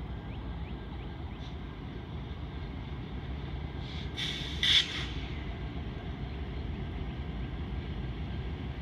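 Distant Canadian Pacific freight train approaching, its diesel locomotives making a steady low rumble. A brief high hiss stands out about halfway through.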